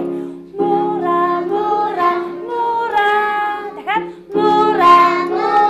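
Electronic keyboard playing a children's song tune: held chords under a stepping melody, in two phrases with a short break about four seconds in.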